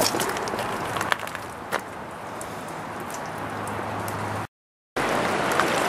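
Quiet outdoor background with a few sharp ticks and clicks. It cuts out for half a second, then the steady rush of a fast-flowing river in flood takes over.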